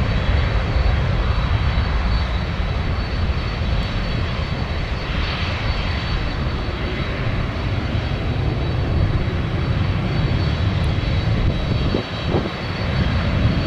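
Jet airliner's engines at takeoff power: a loud, steady rumble with a thin high whine over it, dipping briefly near the end.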